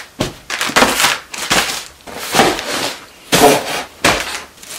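Cardboard shipping boxes and books being dropped and set down on a bed one after another: short knocks and scraping cardboard rustles, about every half second.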